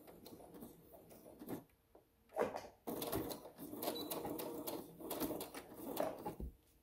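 Home sewing machine backstitching to lock the end of a seam through the layered fabric of a face mask. It runs in short spurts, then steadily for about three seconds, and stops shortly before the end.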